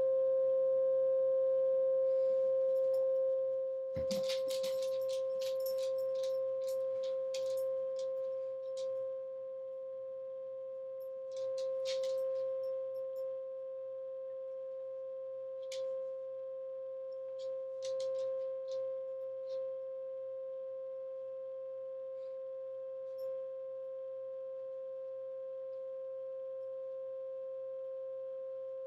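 A steady 528 Hz pure tone, the solfeggio frequency played for energy healing, with a fainter tone about an octave higher. About four seconds in comes a soft thump, then a few seconds of crisp clicks and rustles, with a few more scattered later.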